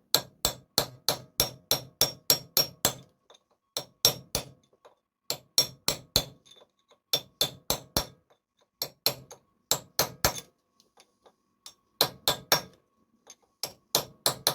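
Repeated sharp hammer taps on metal, bending over the tab washer that locks the front drive sprocket nut. The taps come about four or five a second in runs of a few seconds, with short pauses between runs.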